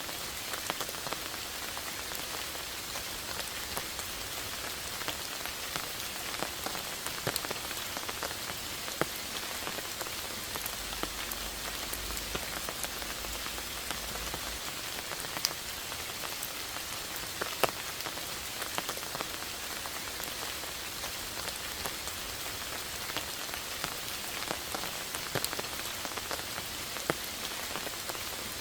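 Steady rain falling, an even hiss with many individual drops ticking sharply close by.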